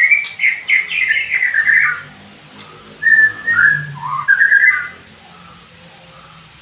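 White-rumped shama singing: a quick run of whistled notes lasting about two seconds, a short pause, then a second whistled phrase that dips and rises again, stopping about five seconds in.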